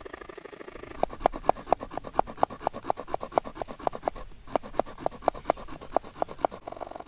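A sharp stone flake scraping and sawing across the edge of a wooden bow-drill fire board, cutting the notch that lets oxygen reach the ember. It goes in quick, even strokes, about four a second, with a short pause about halfway through.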